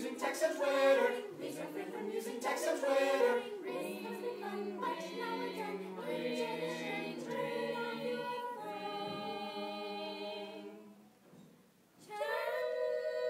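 Mixed choir of teenage voices singing a cappella, moving into long held chords; the singing breaks off for about a second near the end, then comes back in on a new chord.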